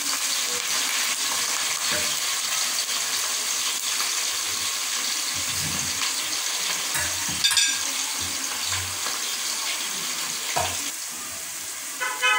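Sliced onions sizzling in hot oil, a steady hiss as they fry toward light golden brown, with a wooden spoon stirring them. Two sharp clinks ring out, one about halfway and one at the end.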